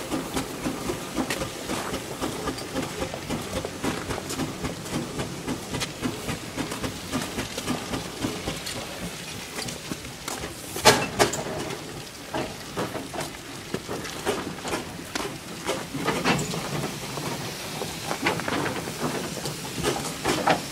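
Burrell steam traction engine running slowly on the road, its exhaust chuffing in regular beats about twice a second. A single sharp, loud knock about 11 seconds in, and later some more irregular, hissing beats.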